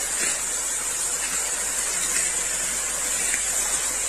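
Water spraying in a steady rushing hiss from the trunk of an Indian laurel (Terminalia tomentosa), a tree that stores water in its trunk.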